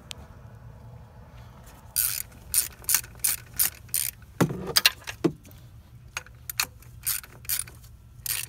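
Ratchet wrench clicking in quick repeated strokes, about three a second, as the replacement A/C compressor's mounting bolts are run down; the clicking starts about two seconds in.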